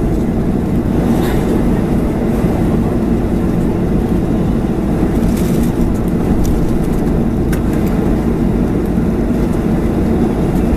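Steady low cabin rumble of a Boeing 737-400 taxiing after landing, its CFM56-3 engines at low power, with a few faint clicks over it.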